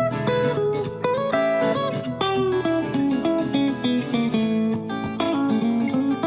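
Background music led by a plucked guitar, quick notes over a steady low drone.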